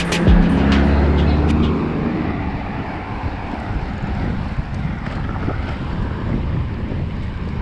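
Wind rushing over an action camera's microphone on a moving road bike: a steady, fairly loud low rush. A low steady hum sits over it for the first couple of seconds and fades out.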